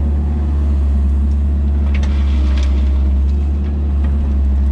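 Kubota 161-3 mini excavator's diesel engine idling steadily, with a few light clicks about two seconds in.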